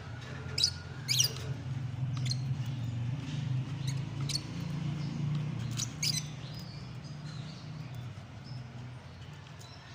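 Lovebirds giving a few short, sharp, high-pitched chirps scattered through, the loudest two about a second in, over a low steady hum.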